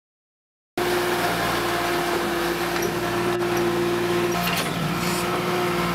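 Kohler Command engine on a Bandit stump grinder running steadily, starting abruptly a little under a second in after a moment of silence.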